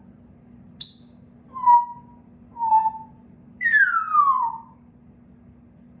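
African grey parrot whistling. A short high chirp comes about a second in, then two short whistles, then a longer whistle that glides down in pitch.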